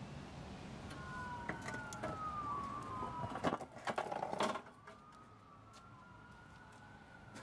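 A distant emergency siren wailing, its pitch slowly rising and falling, with a brief clatter of knocks and rattles about halfway through.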